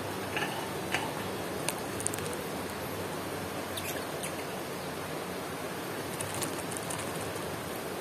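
Lovebirds giving a few short, high chirps, with small clicks as they move about among cassava leaves, over a steady hiss.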